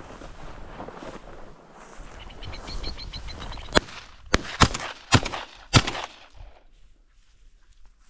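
Footsteps swishing through tall grass, then a brief rapid ticking as upland birds flush, followed by several shotgun shots in quick succession over about two seconds.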